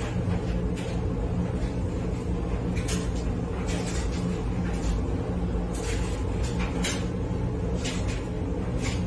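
Steady low machine hum, with short scuffs and knocks of laundry and a plastic basin being handled every second or so.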